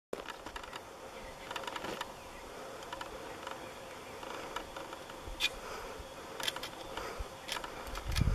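Forest ambience of insects buzzing steadily, with scattered short clicks. A low rumble comes in near the end.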